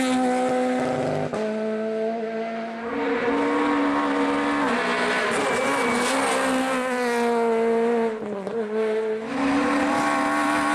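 Peugeot 208 R2 rally car's 1.6-litre four-cylinder engine running hard at high revs through hairpin corners, its pitch stepping down and back up several times with gear changes and lifts off the throttle.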